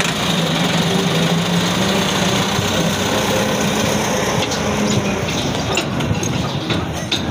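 Massey Ferguson 385 tractor's diesel engine idling steadily, with a few sharp clicks near the end.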